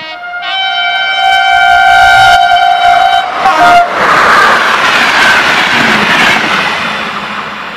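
Locomotive of a passenger train sounding its horn in one long blast that steps up in pitch about half a second in and cuts off near four seconds as it passes close by. The horn gives way to the loud rush of the train and its coaches running past at speed, fading near the end.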